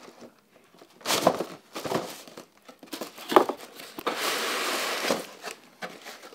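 Cardboard packaging scraping and rubbing as a tight-fitting inner box is forced out of its outer box: a few short scrapes, then a steady slide of about a second just past the middle.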